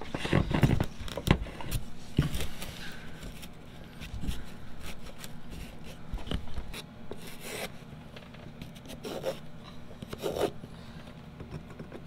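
Irregular rubbing and scraping from hands at work: a power cord drawn through a hole in foam-board insulation, then a small wooden block rubbed and pressed against the foam.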